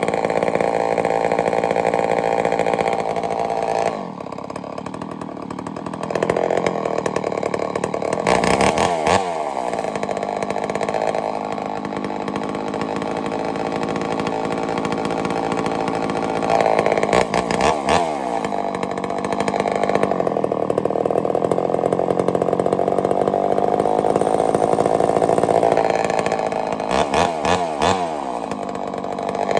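Homelite Super XL-923 82cc two-stroke chainsaw running loud and continuously while its carburettor is tuned, settling lower for a couple of seconds early on and revved sharply three times, about a third of the way in, two thirds in and near the end.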